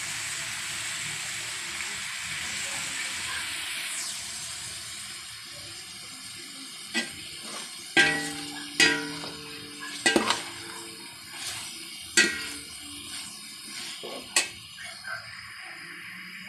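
Food sizzling in a stainless steel pan, the hiss easing after about four seconds. Then a metal ladle stirs and knocks against the pan about seven times, each knock ringing briefly.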